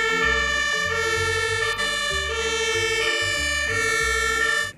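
Sirens of several German fire engines sounding over one another, two-tone horns stepping back and forth between high and low notes.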